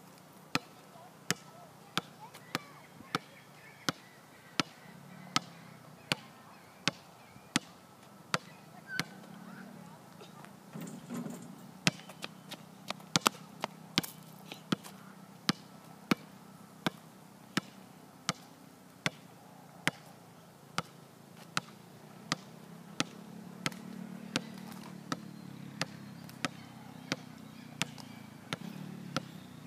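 Sharp knocks repeating steadily about one and a half times a second, with a few extra, irregular knocks about halfway through, over a faint low murmur.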